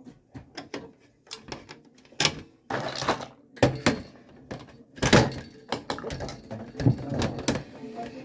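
Irregular clicks, taps and knocks of hand tools and small plastic and metal parts being handled while an instrument cluster is taken apart, with a few short rustles; the loudest knocks come about two, four and five seconds in.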